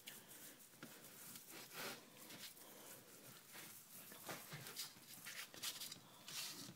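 Near silence with faint, scattered soft rustles and light taps from hands handling seasoned raw steaks on a plate.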